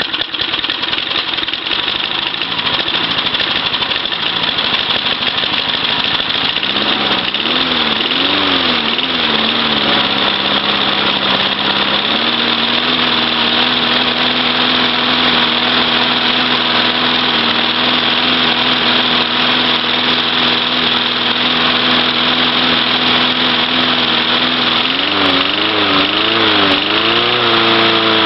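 1981 Briggs & Stratton 3.5 hp single-cylinder small engine running just after a cold start. Its speed wavers up and down twice, about a third of the way in and again near the end, before settling to a steady, slightly higher note.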